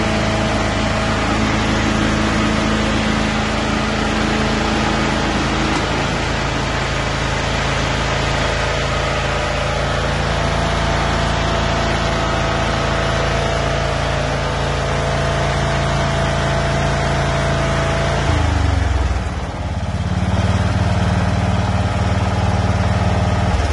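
Toro Wheel Horse 16-38 HXL lawn tractor engine running steadily. About six seconds in its note shifts, and near the end it dips briefly before settling at a lower, steady note.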